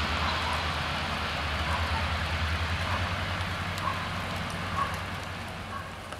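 Passenger coaches rolling past and fading away, wheels running on the rails with a low hum that dies down about halfway through, over a steady hiss of rain.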